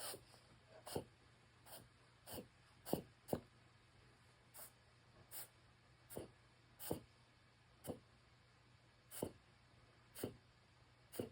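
Yorkshire terrier reverse sneezing: a run of short, sharp noisy inhalations, about one a second at uneven intervals, each breath pulled in hard through the nose and throat.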